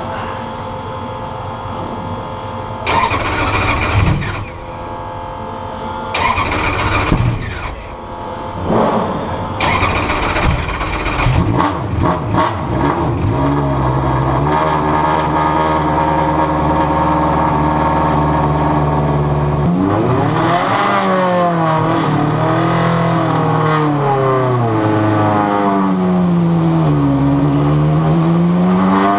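Súper TC2000 race car's engine, heard from inside the cockpit: a few short cranking bursts, then it catches about twelve seconds in and idles steadily. From about twenty seconds in its pitch rises and falls again and again as the car moves off.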